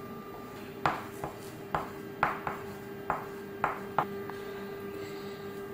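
Wax crayon drawing on a sheet of paper on a hard tabletop: a string of short scratchy strokes and taps, about two a second. A steady hum runs underneath.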